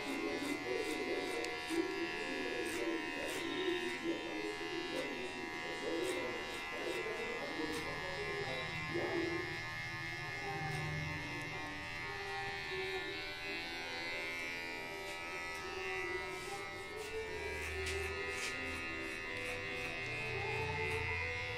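Cordless electric hair clipper buzzing steadily as it cuts short hair close at the nape for a fade, over background music.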